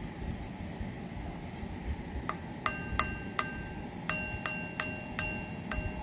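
The gong of an unpowered Edwards 439D-6AW 6-inch fire alarm bell is struck lightly about a dozen times in irregular groups, starting a little over two seconds in. Each strike is a short metallic ping with a bright ringing tone that dies away quickly.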